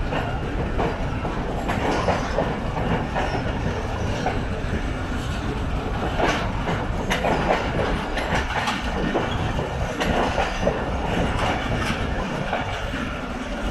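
Empty passenger coaches rolling past on the track, their wheels clattering over the rails with scattered clicks and knocks.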